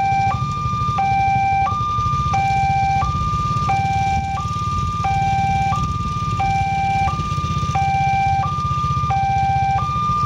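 Railway level-crossing warning alarm sounding with the barrier down: an electronic two-tone signal alternating evenly between a lower and a higher note, each held about two-thirds of a second, over a steady low rumble.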